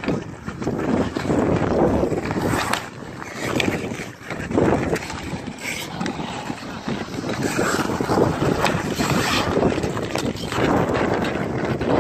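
Ice hockey play: skate blades scraping and carving the ice, with scattered sharp clacks of sticks and puck, and wind buffeting the microphone.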